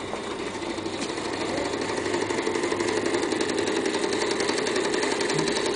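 Small homemade model steam engine running fast, a rapid, even clatter of quick ticks that slowly grows louder.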